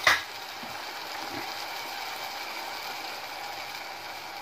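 Tomato-and-onion masala simmering in a pot on the stove, a steady sizzling crackle, after a short sharp noise at the very start.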